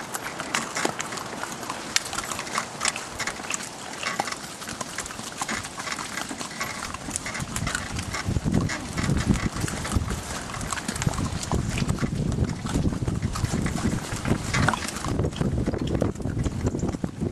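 Shetland ponies' hooves clip-clopping at a walk. About halfway through, a low rumbling noise joins the hoofbeats.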